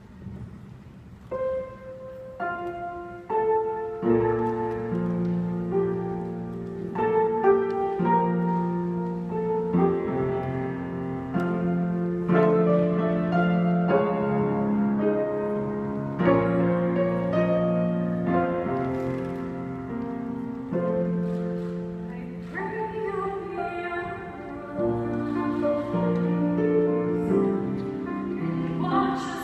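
Piano playing a slow melody over held chords, coming in about a second in.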